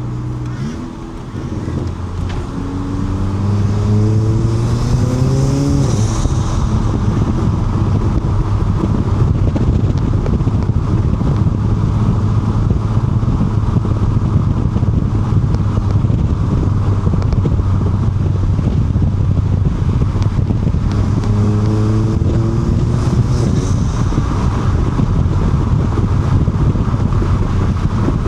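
Mk7 Volkswagen Golf GTI's turbocharged 2.0-litre four-cylinder, fitted with a 4.5-inch downpipe and in sport mode, pulling up through the revs about a second in, then cruising steadily. Its revs rise again briefly a little past twenty seconds, with road noise throughout.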